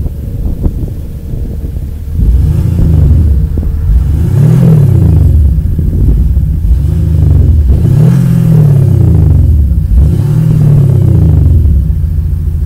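Audi SQ5 TDI's 3-litre biturbo V6 diesel, heard at its quad tailpipes, revved at a standstill. It idles, then is blipped about five times in a row, each rev rising and falling, and drops back to idle near the end.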